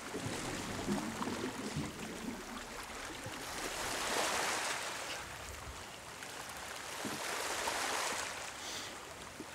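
Shallow sea water sloshing and gurgling, with two slow swells of rushing water about four and eight seconds in.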